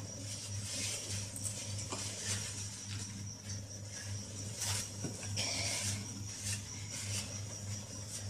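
Faint rustling and shuffling of a person moving about a room, with scattered soft knocks, over a steady low hum.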